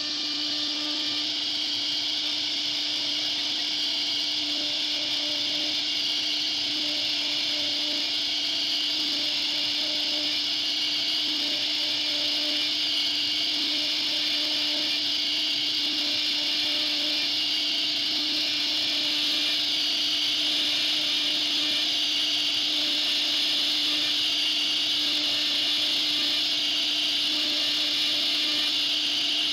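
CNC router spindle cutting into a wooden door panel as it carves grooves and bead details: a steady high-pitched whine and cutting hiss over a constant lower hum.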